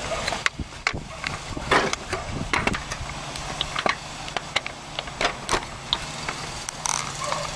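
Scattered clicks and clunks of hand-held metal parts and tools being moved around, over a steady low hum.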